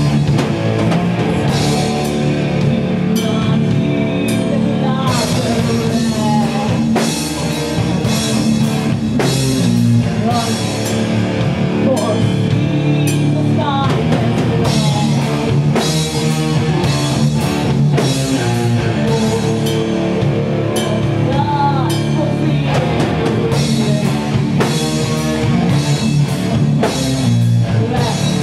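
A doom metal band playing live: loud electric guitar and bass guitar over a drum kit, with drum hits all the way through.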